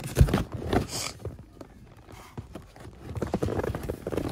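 Cardboard boxes and boxed plastic toy packaging being shifted and rummaged by hand: a few sharp knocks in the first second, then lighter rustling and clatter that picks up again near the end.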